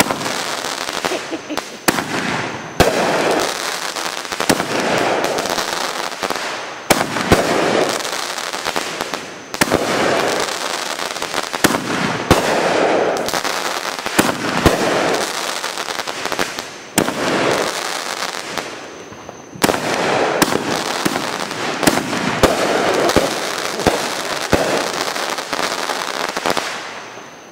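Aerial fireworks going off in rapid succession: many sharp bangs over continuous dense crackling from glittering star bursts, dying down near the end.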